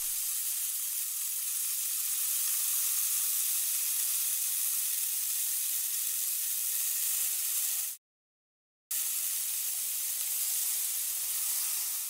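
A small hand trowel scraping lines through fine sand, making a steady gritty hiss. It stops for about a second around eight seconds in, then carries on.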